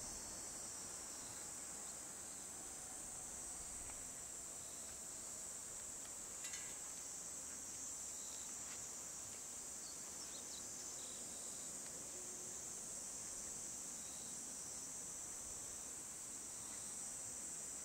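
A steady, high-pitched chorus of insects buzzing without a break.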